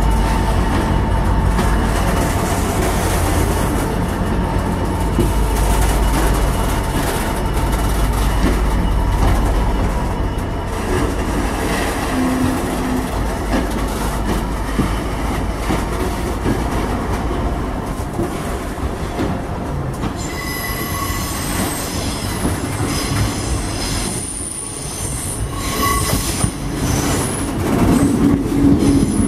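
Long freight train of loaded open ballast wagons rolling past, a steady heavy rumble of wheels on rail. High-pitched wheel squeals come in during the last third, and near the end a diesel multiple unit runs in, louder.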